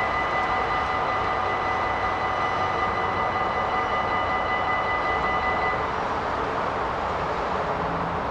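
Level-crossing warning bells ringing continuously over the rumble of a passing train; the bells cut off about six seconds in while the train noise carries on and slowly eases.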